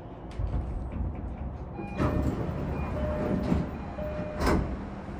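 E233-1000 series electric train heard from inside the car as it runs at low speed. Its Mitsubishi IGBT-VVVF inverter gives short steady tones that step in pitch over traction-motor and wheel rumble, which grows louder about two seconds in. There is a brief louder clunk near the end.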